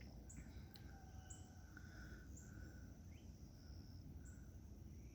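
Faint bird calls: a short high chirp repeating about once a second, with softer, lower notes in between.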